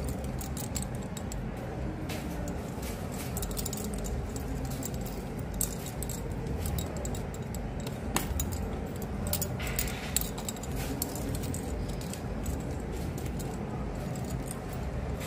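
Light metallic clinking and jingling of costume earrings and their hooks being handled on a shop display rack: scattered small clicks over a steady low hum of shop background noise.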